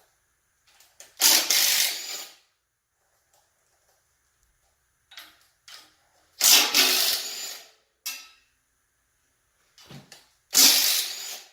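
Cordless drill driver with a 13 mm socket on an extension spinning out engine block fasteners. Three separate bursts, each lasting about a second.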